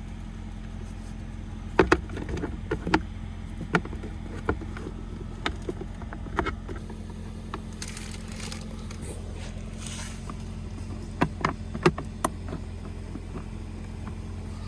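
Scattered plastic clicks and knocks as a car's under-glovebox trim cover and its screw fasteners are handled and fitted back in place, over a steady low hum.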